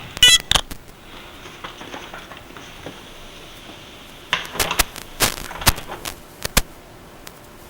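A series of sharp clicks and knocks, a few right at the start and a cluster about four to six and a half seconds in, over a faint hiss.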